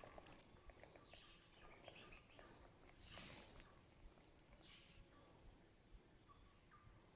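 Near silence: faint forest ambience with a steady high-pitched insect drone and a few soft rustles.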